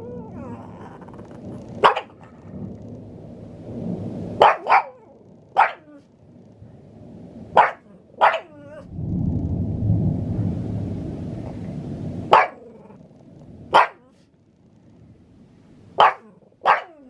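Pug barking in short, sharp single barks and quick pairs, about ten in all, set off by thunder. A low rumble runs for about three seconds between the barks near the middle.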